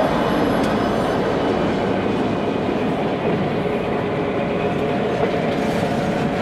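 Large-scale (1:29) model diesel locomotives passing, their onboard sound units giving a steady diesel engine drone, over the rolling noise of freight cars on the track.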